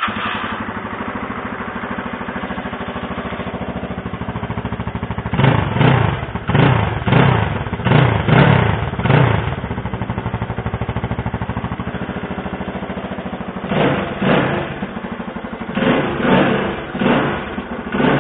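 GMX motorcycle engine running cold, just after starting: a steady idle with a quick, even firing tick, blipped up in revs several times in quick succession around the middle and again near the end.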